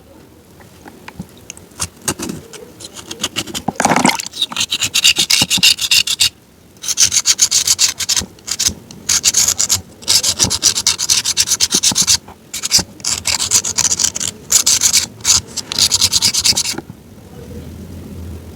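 Dense, rapid crunching and rasping in long runs, with short breaks about six and twelve seconds in, stopping a little before the end.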